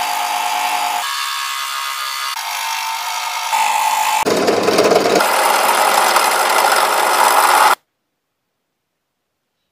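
Scroll saw running and cutting thin wood with its fine reciprocating blade: a steady motor hum and buzz whose tone shifts abruptly several times, then cuts off suddenly after about eight seconds.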